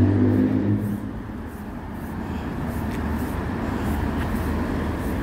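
Road traffic on a city street: a motor vehicle's engine rumbles loudly close by and fades about a second in, leaving a steady traffic hum.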